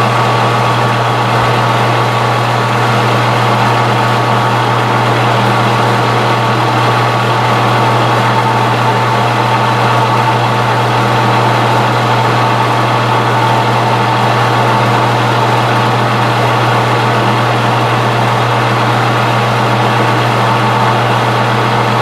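Metal lathe running steadily, with a strong, even low hum and faint steady tones above it, during stepped turning cuts on steel bar stock.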